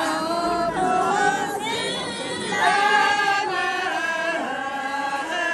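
A group of elderly Tibetan women singing a song together, unaccompanied, in long held notes.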